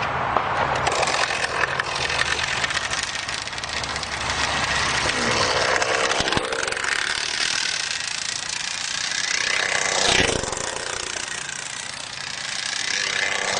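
Tether car's small two-stroke glow engine running flat out as the car laps the circular track on its cable: a high, continuous whine whose pitch wavers up and down with each lap. It swells sharply twice, about ten seconds in and near the end, as the car passes close.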